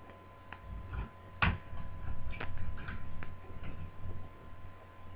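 Irregular small clicks and taps of a screwdriver and fingers on a laptop's plastic base as a speaker's screws are undone, with one louder knock about one and a half seconds in. A faint steady hum runs underneath.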